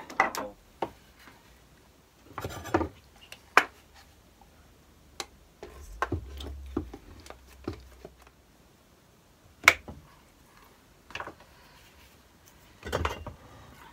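Plastic spring clamps being handled and snapped onto a board on a wooden workbench: scattered clicks and clacks, with short clattery bursts and one sharp snap a little past the middle.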